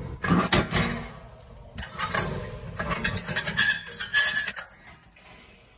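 A pack of Starburst candy being pulled out of a snack vending machine's delivery bin: the bin's metal door rattling and the wrapper crinkling in two bursts of handling, the longer one in the middle, then it goes quiet near the end.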